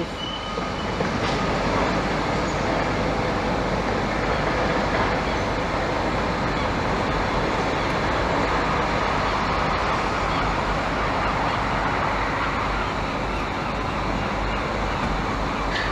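Steady rumble of road traffic, an even wash of noise with no distinct engine note or knocks.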